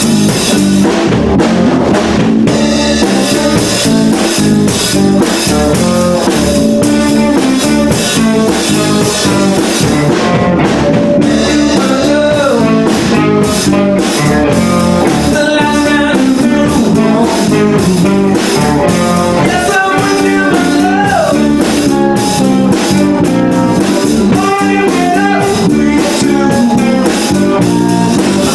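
Live rock band of electric guitars, electric bass and drum kit playing a song together, with the drums keeping a steady beat. Bending, wavering melody notes rise above the band about 12 seconds in and again around 20 seconds.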